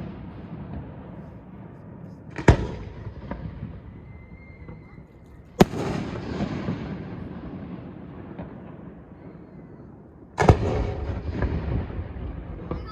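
Aerial fireworks shells bursting: three loud booms, about two and a half seconds in, again three seconds later and once more near the end. Each is followed by a long rolling rumble and a few smaller pops. A faint whistle sounds just before the second boom.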